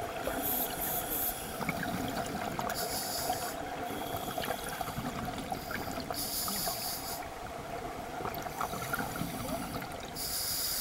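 Scuba diver breathing underwater through a regulator: four rushes of hiss a few seconds apart, with bubbling and water noise throughout over a faint steady hum.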